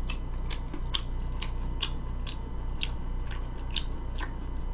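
Chewing close to the microphone: a mouthful of chicken stir-fry worked with short, sharp mouth clicks about two a second, over a faint steady hum.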